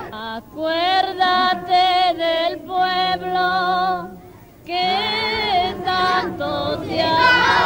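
Children's voices singing a chant together in held, wavering notes, phrase by phrase, with a pause about four seconds in.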